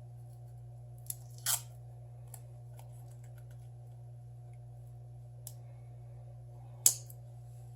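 Scattered light clicks and a short scrape from a Samsung Galaxy S7 screen assembly being handled while its backing layer is peeled off and the part is made to sit flat, the sharpest click near the end, over a steady low hum.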